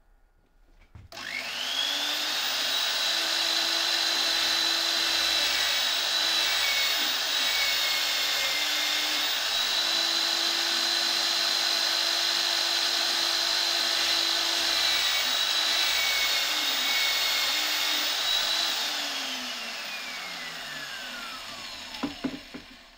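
Homemade drill press motor spinning up about a second in and running steadily with a high whine while a twist bit drills holes in plywood. Near the end the motor is switched off and winds down with a falling whine.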